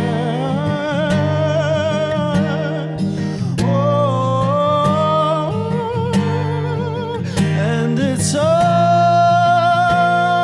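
Worship band music: long wordless sung notes with vibrato over acoustic guitar and steady low bass chords.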